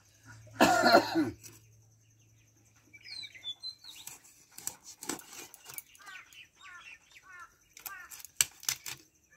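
A person coughing about half a second in, then sharp knocks and scraping as small fish are cut on a boti blade set in a wooden block, with birds chirping.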